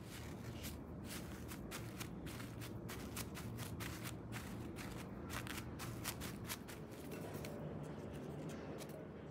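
Paper towel crinkling and rustling as hands press and pat it down over potato strips to blot them dry: a quick, irregular run of small crackles that stops about seven seconds in.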